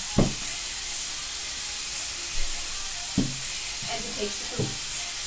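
Food frying in a pan, a steady sizzling hiss, with a few short knocks, the loudest just after the start.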